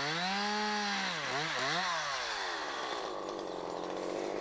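Two-stroke chainsaw running at high revs while cross-cutting a felled trunk. Its pitch dips and recovers a couple of times in the first two seconds, then settles into a steady, slightly lower drone.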